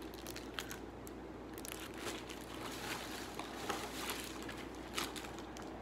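Plastic bag and packaging rustling and crinkling as items are handled and pulled out, with a few sharper crackles scattered through it.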